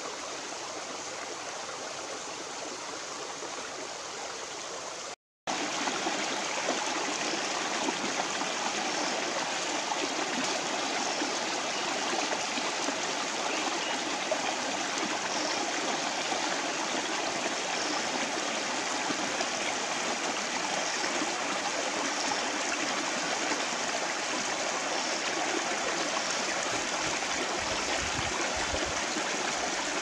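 Steady rush of flowing stream water. It cuts out for a moment about five seconds in and comes back louder.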